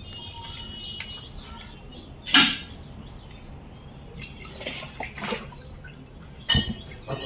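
Water-filled plastic fish bags being handled: plastic crinkling and water sloshing in the bags, with a louder rustle about two seconds in and a low thump near the end.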